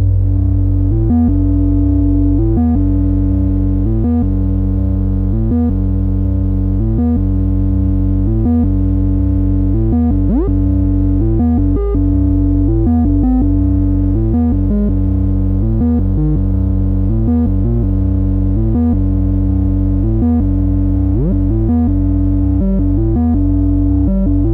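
Two Make Noise 0-Coast synthesizers playing a repeating low bass sequence that steps between a few notes in an even rhythm. A quick rising sweep comes about ten seconds in, and another just after twenty-one seconds.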